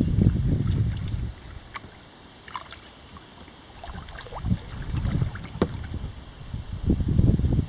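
Kayak paddling: a double-bladed paddle dipping and pulling through the river water, with small splashes and drips off the blades. A low rumble of wind on the microphone fades out about a second and a half in and comes back in gusts in the second half.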